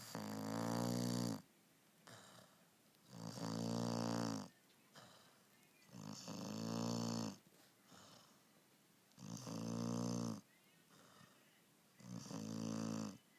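Labrador puppy snoring loudly in its sleep: five long snores about three seconds apart, each lasting over a second, with faint breathing between them.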